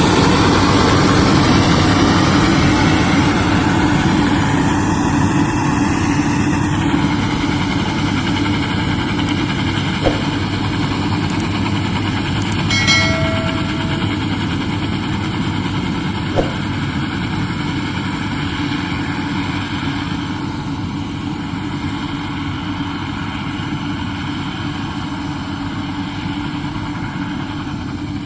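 Combine harvester running steadily under load. A short pitched tone sounds about halfway through, and there are two sharp clicks.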